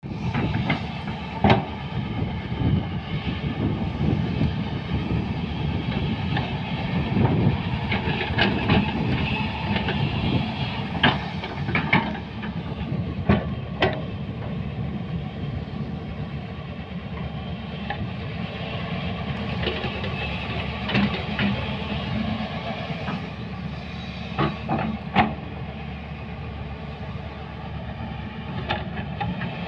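Hyundai 210 crawler excavator working loose soil: its diesel engine runs steadily under load, with sharp clanks from the steel bucket and tracks scattered throughout, several close together between about 8 and 14 seconds in and a pair near 25 seconds.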